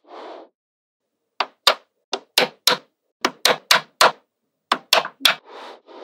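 Magnetic balls snapping together one by one: about a dozen sharp clicks in three quick runs, starting about a second and a half in, with a soft rustle near the end.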